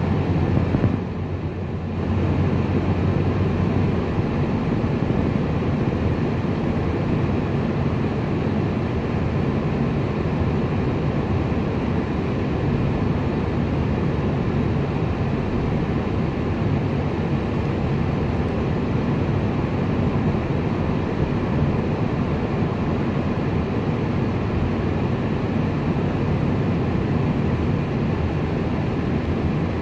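Steady road and engine noise of a moving car, heard from inside the cabin, briefly dipping quieter about a second in.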